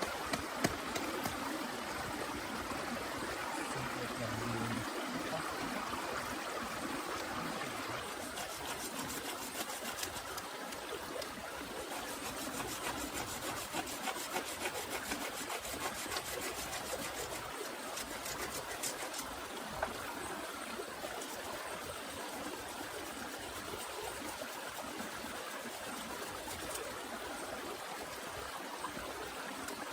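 Steady rain with water trickling and running, and a dense patter of small drops through the middle.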